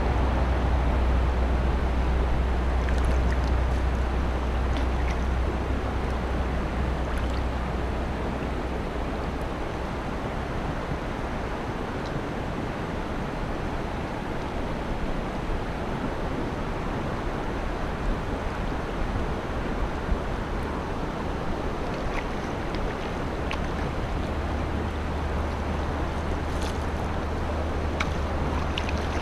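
Steady rushing water of a shallow river rapid, with wind rumbling on the microphone in the first few seconds and again near the end. Near the end come a few short splashes as a hooked fish thrashes at the surface.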